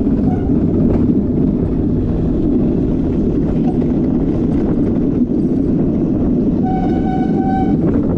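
Skyline Luge gravity cart rolling down a concrete track: a steady rumble from its wheels on the concrete. A steady high-pitched tone is held for about a second near the end.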